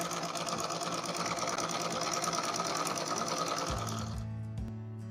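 Sewing machine running at speed, the needle stitching through fabric in a rapid, even rhythm, then stopping about four seconds in.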